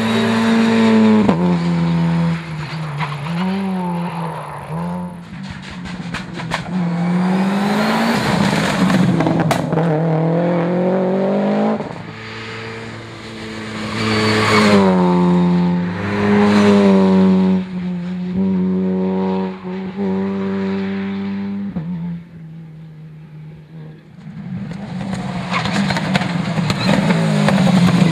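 Opel Adam rally car's engine revving hard under full acceleration, its pitch climbing in each gear and dropping at each upshift, over several stretches as the car drives past. Near the end, a second rally car's engine, a Subaru Impreza's, comes in loud.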